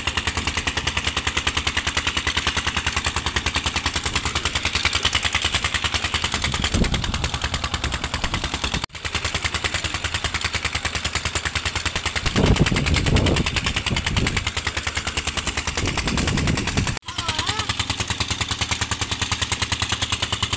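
Stationary diesel pump engine running with a steady, rapid chugging. Gusts of wind buffet the microphone with a low rumble several times midway.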